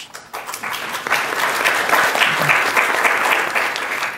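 Audience applauding, a dense patter of claps that swells over the first second and dies away near the end.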